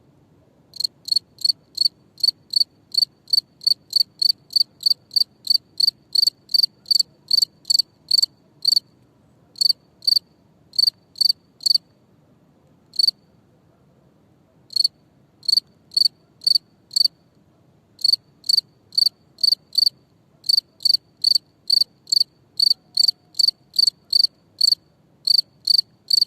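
A cricket chirping: short, clear, high chirps at about two a second, broken by a few short pauses, the longest about three seconds near the middle.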